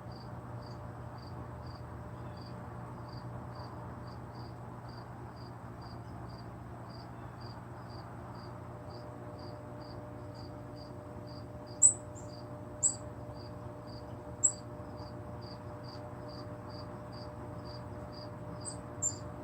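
Short, sharp, high bird calls, four or five of them in the second half, the first about two-thirds of the way through and the last two close together near the end. Under them runs a steady high chirping, evenly spaced about twice a second, over a low hum.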